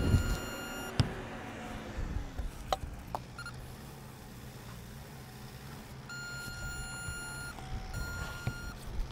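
RhinoBond induction welding tool beeping as it heats the fastening plates under the TPO membrane: a short electronic beep at the start, a brief blip about three and a half seconds in, then a long beep about six seconds in followed by a shorter one. A couple of knocks come as the tool is set down on the membrane.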